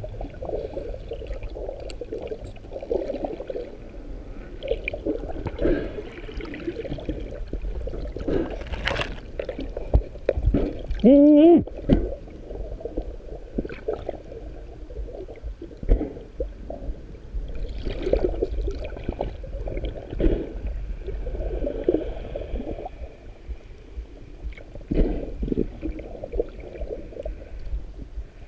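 Underwater water noise heard through a camera housing as a diver swims: a muffled, uneven churning that swells and fades every few seconds, with scattered knocks. About eleven seconds in comes a short, loud pitched sound that rises in pitch.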